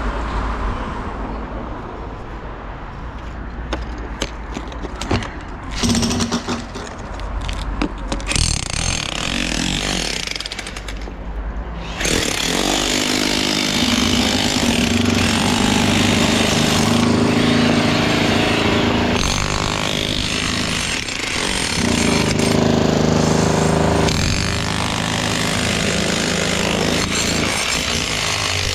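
Clattering and knocks with a low rumble, then about twelve seconds in a construction power tool starts and runs loudly and steadily to the end, easing briefly once in the middle.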